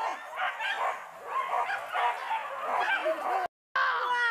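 Several hunting dogs baying and yelping in quick, overlapping high calls while on the chase of a wild boar, cut off briefly about three and a half seconds in.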